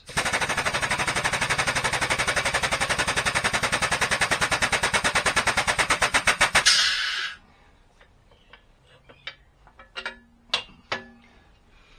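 Hydraulic shop press pump pulsing rapidly and evenly for about six and a half seconds while it presses a new ball joint into a 300ZX rear lower control arm, then a short hiss as it stops. A few light clunks follow as the arm is handled.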